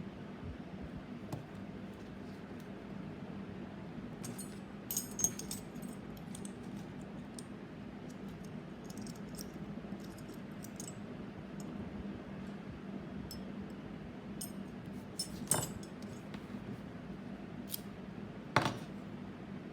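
Light metallic clicks and clinks of small metal pieces being handled, over a steady low hum. A few clicks come in a cluster about five seconds in, with two sharper clicks near the end.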